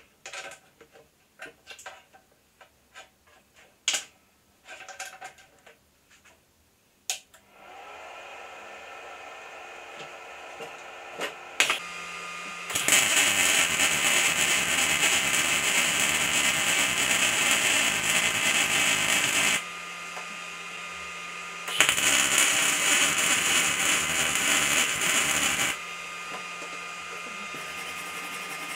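A few clicks and knocks as a cable is plugged into an inverter welder, then a steady machine hum starts. Two bursts of MIG welding arc follow, crackling and spattering on a steel tube, the first about seven seconds long and the second about four, with the hum carrying on between and after.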